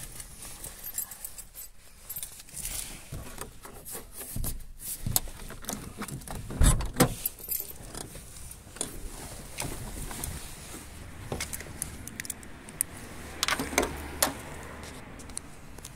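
Jangling and clicking of small hard objects being handled, like keys, in irregular bursts, with a dull thump about seven seconds in.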